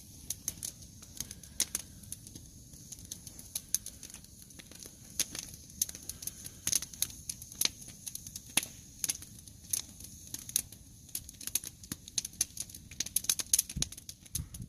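A small fatwood fire catching and crackling, with many irregular sharp pops and snaps, a few each second.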